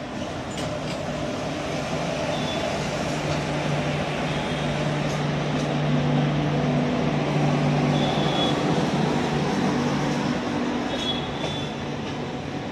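Humsafar Express coaches rolling in behind a WAP-4E electric locomotive, wheels rumbling on the rails, with a few brief high wheel squeals. A steady low hum swells and fades between about three and ten seconds in as the diesel generator of the luggage, brake and generator car passes.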